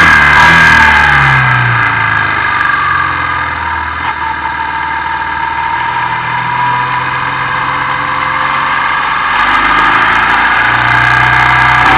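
Motorcycle engine heard from an onboard camera, with wind noise: it eases off in the first couple of seconds, runs quieter on a light throttle through the middle, and climbs in pitch and loudness again near the end as it accelerates.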